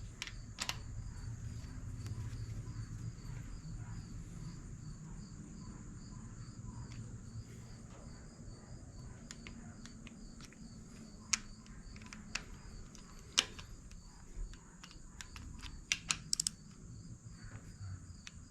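Scattered sharp metallic clicks of hand tools, a ratchet and torque wrench, working the cylinder head bolts of a KA24DE engine, with a few louder clicks late on over a low hum.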